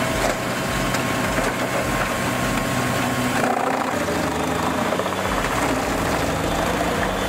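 Heavy-duty industrial wood chipper running, a steady engine drone under dense shredding noise. The sound changes about three and a half seconds in, its low drone dropping away for a moment before it comes back.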